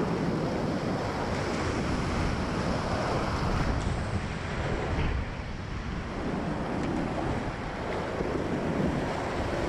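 Whitewater rapids of a river at high flow rushing and splashing close around a kayak, with wind and spray buffeting the action camera's microphone. The roar eases a little about halfway through, then builds again.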